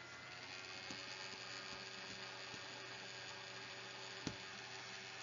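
Faint steady electrical hum with background hiss, and a single faint click about four seconds in.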